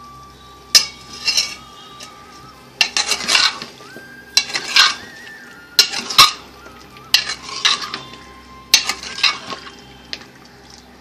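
Steel ladle scraping and knocking against a steel pot as raw chicken pieces are stirred into hot masala fried in oil, which sizzles with each stroke. The strokes come in short bursts about every second or so.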